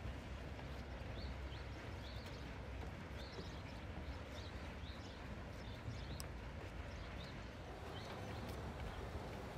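Footsteps on a boat-dock gangway's wooden decking, a light, even tapping about twice a second over a low steady rumble.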